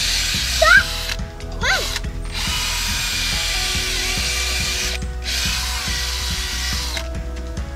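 Cordless drill running in four stretches of one to three seconds, each stopping briefly before starting again, then stopping about seven seconds in.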